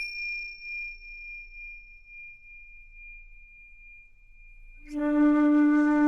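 Meditation music: a high-pitched struck bell rings out and slowly fades, then about five seconds in a flute-like wind instrument starts a held note.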